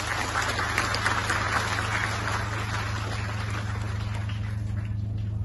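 Audience applauding, the clapping dying away near the end, over a steady low hum.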